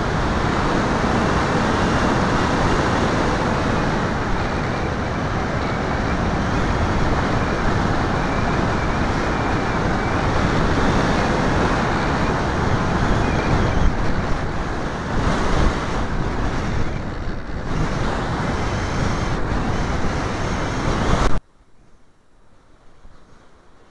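Wind and motor noise rushing over the onboard camera microphone of a model airplane in flight: a loud, even roar with no clear pitch. It cuts off suddenly near the end, leaving only a faint hiss.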